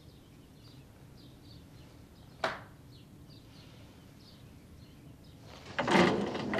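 Crow cawing loudly near the end, over faint bird chirps, with a single sharp knock about two and a half seconds in.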